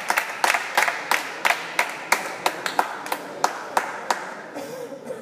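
Hands clapping, about three claps a second, growing fainter and stopping about four seconds in.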